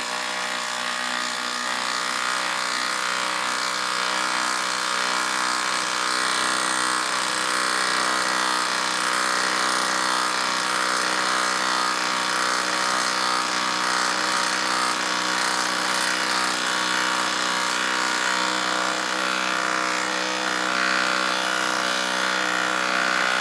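DeWalt DCF890 cordless 3/8-inch impact wrench, converted to a 1/4-inch hex chuck, hammering steadily without a break as it drives a long screw into a wooden log. It stops suddenly near the end once the screw is fully driven.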